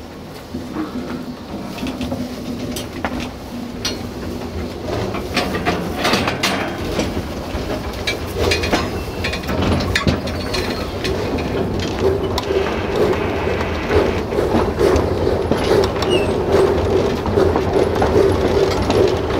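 Narrow-gauge steam train running, with wheels clicking and carriages rattling, growing louder, and a steady hum joining about twelve seconds in.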